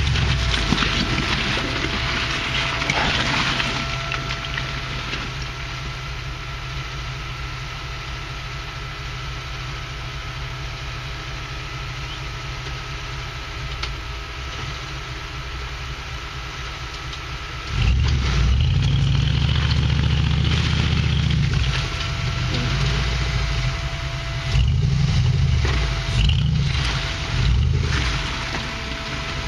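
Rock buggy's engine idling, then revving hard in a few surges, the first about two-thirds of the way through and two shorter ones near the end, as it tries to crawl over a ledge with its front differential hung up on a big rock.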